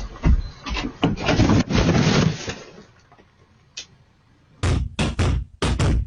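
A string of knocks and thumps: clattering knocks with rustling in the first couple of seconds, then, after a short lull, four or five heavy thumps in quick succession.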